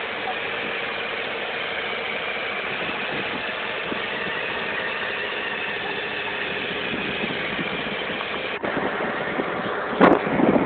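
Crane truck's engine running steadily at idle. A short break comes about three-quarters of the way in, and a sudden louder, rougher burst of noise near the end.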